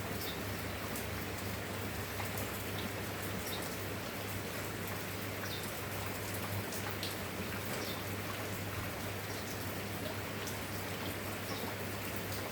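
Steady rain, an even hiss with scattered individual drops ticking through it, over a constant low hum.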